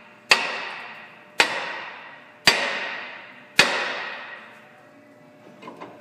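Hammer striking a rusted cast-iron rear brake rotor on a Ford Explorer, four blows about a second apart, each leaving the rotor ringing as it fades. The blows are meant to break the rust bond between the rotor and the hub face. A few light clicks follow near the end.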